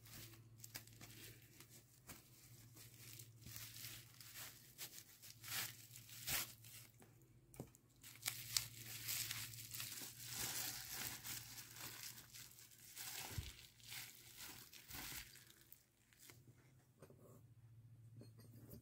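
Plastic bubble-wrap packaging crinkling and rustling as items are unwrapped by hand, a string of short, irregular crackles that thin out near the end.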